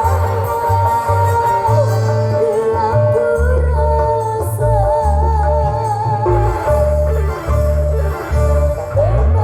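Music played loud through a big parade sound system: heavy bass notes change in blocks under a wavering high melody line.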